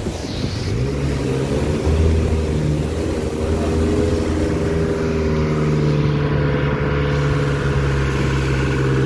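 Camper van's engine pulling steadily as it drives through a flooded street, its pitch rising about a second in and then holding, over the rush of water and rain.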